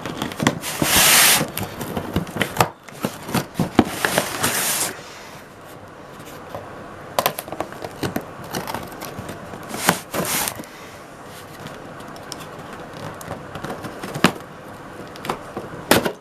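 Packaging of a model railway kit's box being worked open by hand: a loud rustle about a second in, dense crackling and scraping for a few seconds, then scattered clicks and taps.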